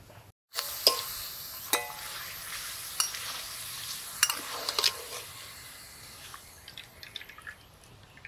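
Papad frying in hot oil in a metal karahi: a steady sizzle, with a handful of sharp clicks as two metal spatulas press it against the pan. The sizzle dies down over the last few seconds.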